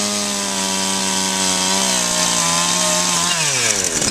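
Chainsaw running at full throttle, its bar cutting down through asphalt shingles and roof decking for a ventilation cut. The engine holds high, steady revs, then about three seconds in they fall away as the throttle eases off.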